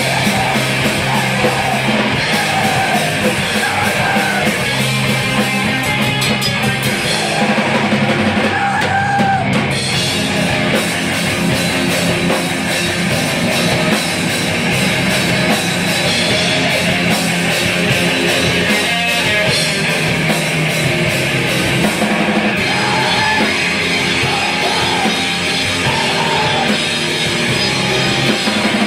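Screamo/hardcore punk band playing live and loud: distorted guitars and bass over fast drumming with constant cymbal crashes.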